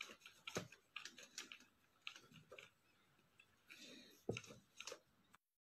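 Near silence with faint scattered clicks and soft rustles, the audio dropping out completely just before the end.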